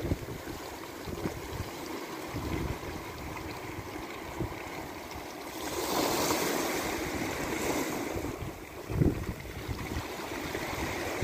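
Small sea waves breaking and washing over a stony shore, with wind rumbling on the microphone. A louder wash of surf comes about halfway through and lasts a couple of seconds.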